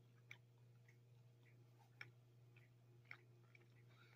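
Near silence: a steady low hum under a few faint, irregular clicks of a person chewing toast.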